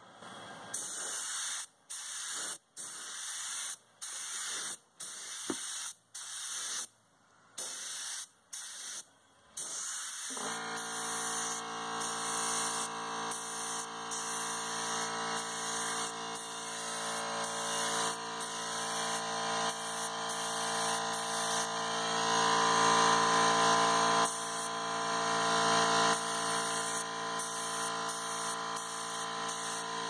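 Mastercraft air paint spray gun hissing in short bursts as the trigger is pulled and released, about a dozen times in the first third. About ten seconds in, a steady motor hum starts and runs under the continuing spray: the Campbell Hausfeld air compressor kicking on to refill its tank.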